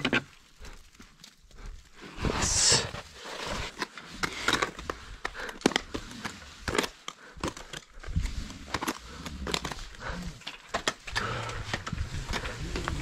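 A climber moving on snow with gear: irregular clicks, scrapes and crunches, with heavy breathing and a loud hiss about two and a half seconds in.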